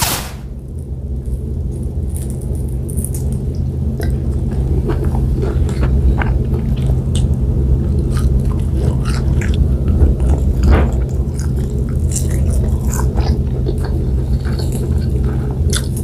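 Close-miked eating sounds: chewing and mouth noises with many short, crisp clicks and crunches from about four seconds in, as fried milkfish, rice and scrambled egg are eaten by hand. A steady low hum runs underneath.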